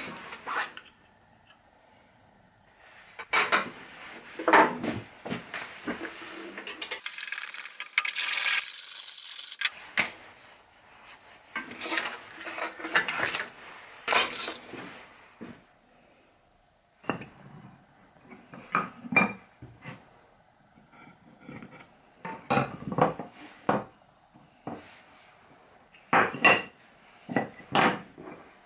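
Wooden workpieces and hand tools handled on a workshop bench: scattered knocks, clatter and rubbing of wood on wood and on a metal table. About a third of the way in there is a steady rasping noise for about two seconds.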